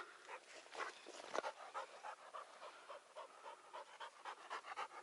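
Dog panting quickly and evenly, about three or four breaths a second.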